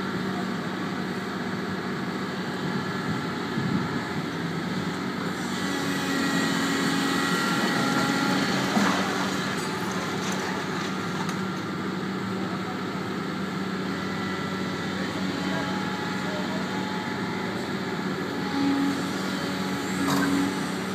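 Doosan DX300LC crawler excavator's diesel engine running steadily. The engine works harder for a few seconds in the first half, with the hydraulics whining. There is a single knock and, near the end, two short whines.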